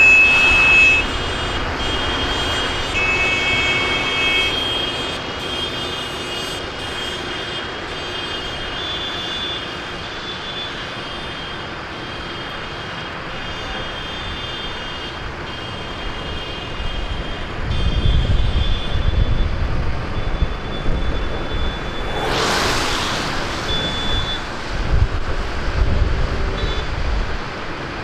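A column of tractors driving past on the road, their diesel engines and tyres making a steady traffic noise. High beeping and horn tones come and go throughout. Heavier low rumbling follows in the second half, with a brief loud hiss about twenty-two seconds in.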